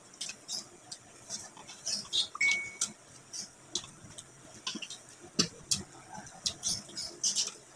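Close-up eating sounds: wet chewing and lip smacks while boiled chicken is pulled apart by hand. They come as many short, irregular clicks.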